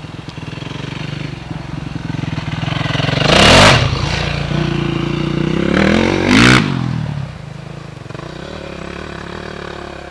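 Dirt bike engine revving hard as it rides past and up a steep shale hill climb. It is loudest twice, about three and a half and about six and a half seconds in, the second time falling in pitch as it goes by, then quieter as the bike climbs away.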